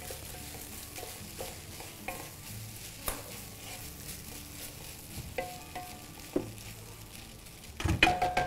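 Food sizzling in hot oil in a cooking pot while it is stirred, with a spoon knocking against the pot now and then.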